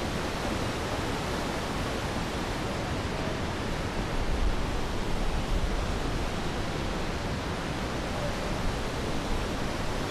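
Fast mountain river rushing steadily, a dense even roar of water, with a stretch of louder low rumble about four to six seconds in.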